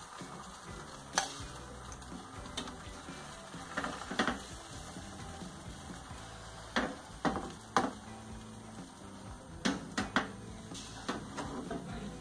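Beaten eggs sizzling in butter in a frying pan, with a spatula scraping and knocking against the pan about a dozen times.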